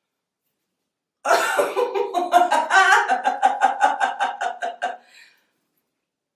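A woman laughing on purpose as a laughter yoga exercise. A rhythmic ha-ha-ha of about five pulses a second starts about a second in and trails off after about four seconds.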